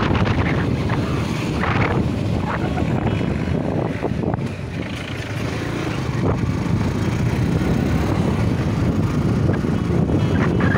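Wind rumbling steadily on the microphone, mixed with the running noise of a slow-moving vehicle.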